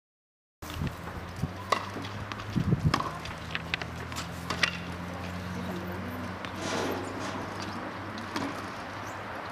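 Tennis ball being struck by rackets and bouncing on a hard court in a wheelchair tennis rally: a few sharp pops in the first half, over outdoor ambience with a steady low hum. The sound cuts in abruptly just after the start.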